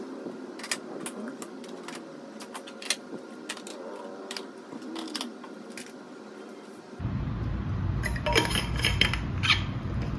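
Light clicks and clatters of plastic paint cases and palettes being set down in a metal rolling cart's tray. About seven seconds in, louder handling noise close to the microphone.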